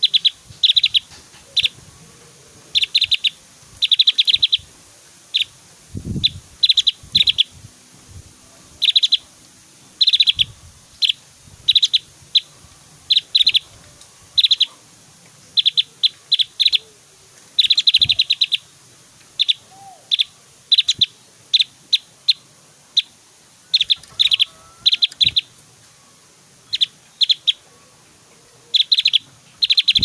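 Javan grey-throated white-eye (opior Jawa) calling: short, sharp bursts of rapid high chirps, repeated irregularly with brief gaps between them. A couple of low thumps are heard, about six seconds in and again near eighteen seconds.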